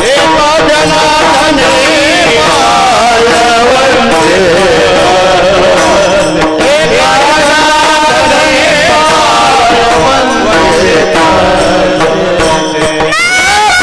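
A young boy singing a devotional kirtan melody full of quick turns and wavering held notes, over instrumental accompaniment with a steady held drone note beneath.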